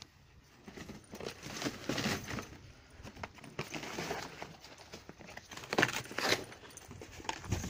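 A dog scrabbling over and biting at a torn cardboard box, its paws and teeth scraping and crackling the cardboard in irregular bursts, loudest about two seconds in and again around six seconds.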